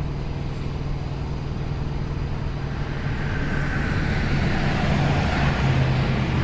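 Steady low engine hum, with road traffic noise swelling from about three seconds in, like a vehicle passing.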